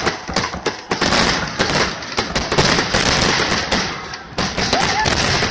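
Aerial fireworks exploding in a rapid barrage: many sharp bangs overlapping with hardly a gap.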